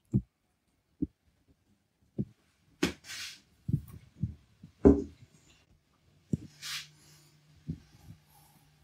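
Wet squelches of a small tuna's roe and guts being squeezed in the hand, then plastic rustling and a series of heavy thuds, the loudest near the middle, as the gutted fish is set down on a wooden cutting board.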